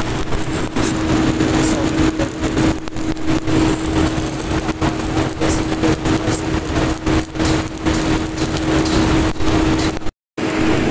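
Truck-mounted crane's engine running steadily while it lifts a heavy steel plate, with a constant hum and irregular rumbling over it. The sound cuts out for a moment near the end.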